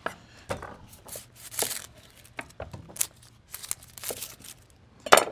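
Chef's knife trimming and peeling a yellow onion on a wooden cutting board: irregular crackles of the dry papery skin tearing and small knife taps, with one sharper knock near the end.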